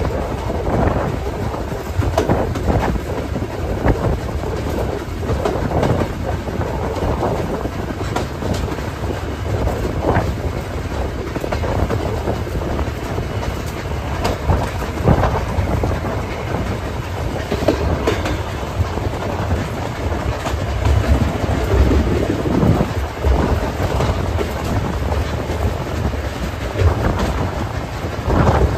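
Steam-hauled passenger train's coaches running along the line: a steady rumble with irregular clicks and clacks of the wheels over the rail joints, heard from a coach's open veranda.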